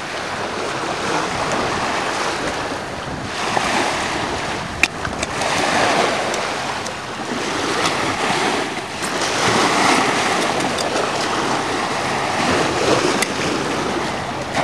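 Small waves breaking and washing up a gravelly lake shore, swelling and easing every few seconds. A sharp click about five seconds in.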